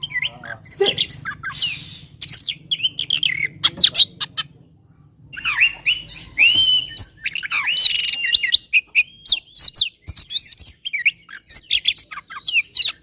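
Oriental magpie-robin (kacer) singing an excited, aggressive song of rapid, varied whistles, trills and harsh notes, with a short pause about four and a half seconds in. This is the 'fighting' song of a male in full voice, the kind played to provoke other kacer.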